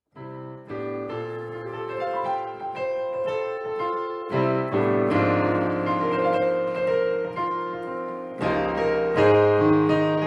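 Piano music: a light melody over chords, played in phrases.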